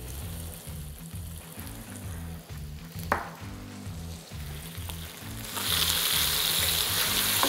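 Mushrooms and shallots in butter sizzling in a hot frying pan, quietly at first; a little past halfway the sizzle jumps much louder and stays loud as Worcestershire sauce is poured into the pan.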